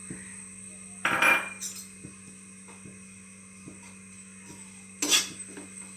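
Steel spoon scraping and clinking against a non-stick frying pan while stirring grated coconut, with two louder scrapes about a second in and near the end and light taps between, over a steady faint hum.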